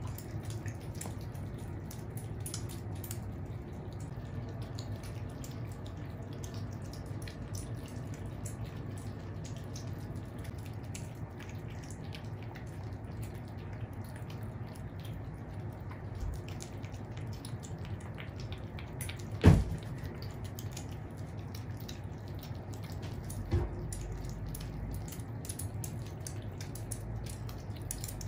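Several kittens eating together from one plate: a steady run of wet smacking, slurping and chewing clicks. A single thump comes about two-thirds of the way through, and a smaller one a few seconds later.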